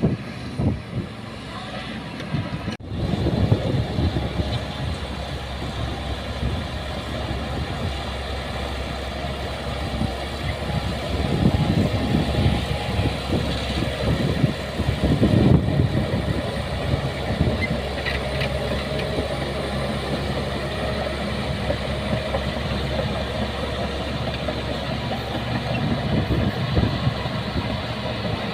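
Heavy construction machine's diesel engine running steadily, swelling in loudness a couple of times, with a brief break about three seconds in.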